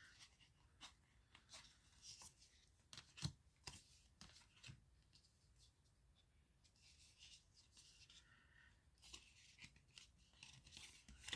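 Faint handling of tarot cards: soft clicks and rustles of card stock as cards are slid off the pile and laid down one after another.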